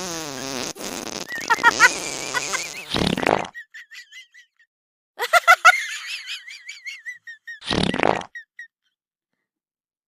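A string of comic fart sounds: squeaky, wavering high-pitched toots and two short noisy blasts, about three and eight seconds in, separated by gaps of dead silence.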